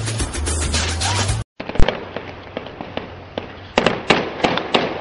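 Fireworks crackling densely for about a second and a half. After a brief cut to silence, scattered sharp bangs of weapons fire follow, several in quick succession near the end.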